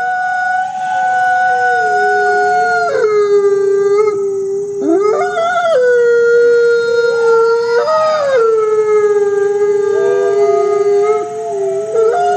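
Several canines howling together: long, overlapping howls at different pitches, each held fairly steady and now and then gliding up or down.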